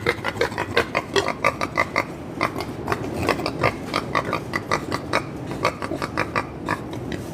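Young pigs grunting at close range: many short sounds in quick succession over a steady low noise.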